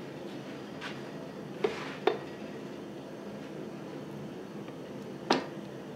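Sharp metal clinks as a hot steel bar held in tongs is set onto the tooling of a Denbigh fly press: two close together about one and a half to two seconds in, and one near the end. A steady hum of the running forge underneath.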